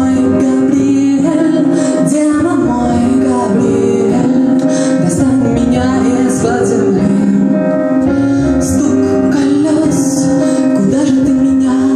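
A woman singing, accompanying herself on a Nord Stage keyboard, with a bowed cello playing alongside.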